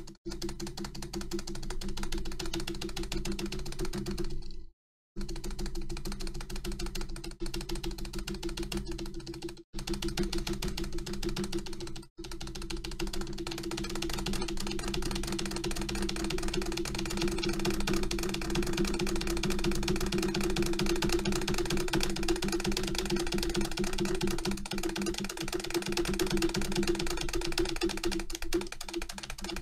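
Rapid, continuous presses on an Acer computer keyboard's spacebar, about seven clicks a second, over a steady low tone. The sound cuts out briefly three times.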